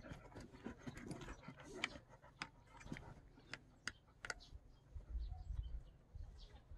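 Month-old puppies moving about on wooden decking: faint scattered clicks and scuffs of small paws and noses, with a low rumble about five seconds in as fur brushes close to the microphone.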